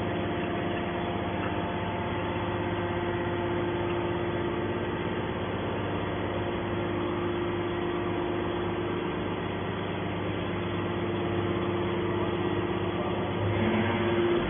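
Steady running hum of a hydraulic horizontal metal baler's power unit, with several held tones and no change in pace.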